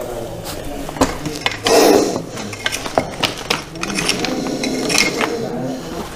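Metal snake hook clinking and scraping against loose broken rock, with stones knocking and shifting: irregular sharp clicks and a louder scrape about two seconds in.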